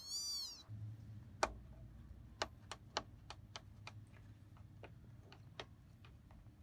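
A kitten's single short, high mew that rises and falls, followed by about a dozen sharp, irregular clicks.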